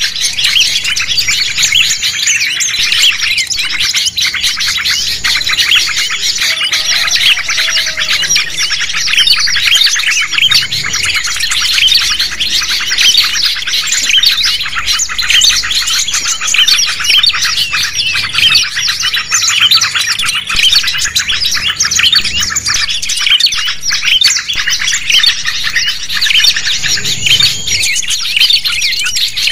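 Dense chorus of many small songbirds chirping and twittering at once, with no let-up: a mixed 'noisy birds' lure recording played to attract wild birds for trapping.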